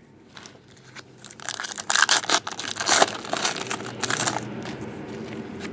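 Trading card packs and cards being handled: crinkling and rustling of foil pack wrappers with light clicks, loudest from about one and a half to four and a half seconds in.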